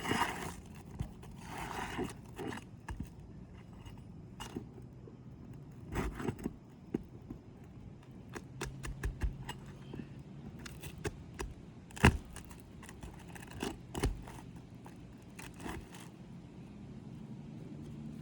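Asphalt roof shingles being pried up and their nails worked loose: light scraping and crackling broken by scattered sharp knocks, the loudest about twelve and fourteen seconds in.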